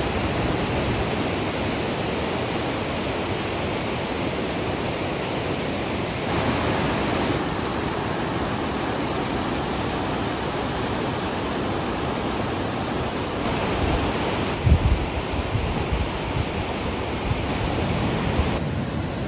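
Steady heavy rain falling, a dense even hiss, with a brief low thump about three-quarters of the way through.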